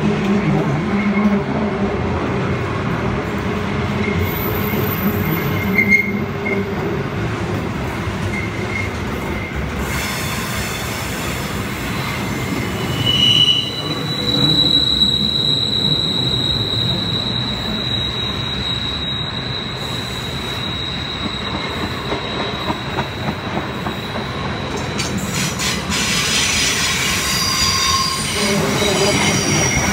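Container wagons of a freight train rolling past on a downhill grade: a steady rumble and clatter of wheels on rail with high metal squeals on top, one of them long and steady through the middle. The train is braking on the descent, and the squeals go with its air brakes being applied.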